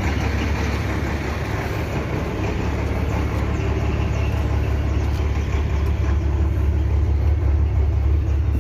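Mercedes-Benz 1620 truck's six-cylinder diesel engine running steadily at idle, with the tipper body raised for unloading.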